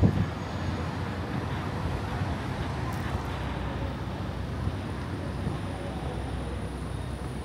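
City street traffic: a steady rumble and hiss of cars on the road beside the footpath, with a brief low thump in the first moment.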